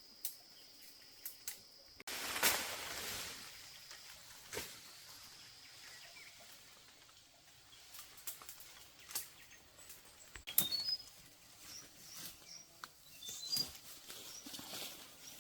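Outdoor rustling and scattered clicks and knocks, with a steady high insect buzz in the first couple of seconds and a few short bird chirps about two-thirds of the way through.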